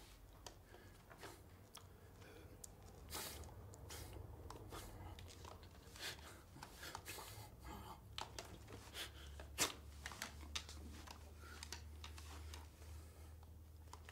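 Faint scattered rustles and clicks of a person shifting and gesturing at a desk, over a low steady room hum, with one sharper click near the middle.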